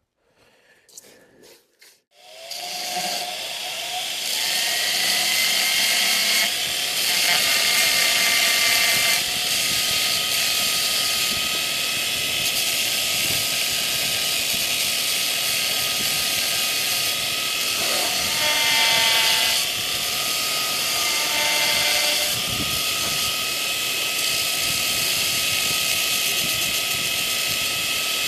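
Power grinder starting up about two seconds in and then running steadily with a high whine, cleaning up steel forged into a horseshoe's jar calk. The whine changes pitch several times as the steel is worked against it.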